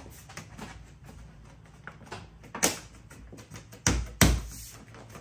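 Rear-window trim molding of a 1981 Corvette being pressed by hand onto its retaining clips. There are three sharp knocks, the loudest two close together near the end, with small clicks in between as the molding seats on its clips.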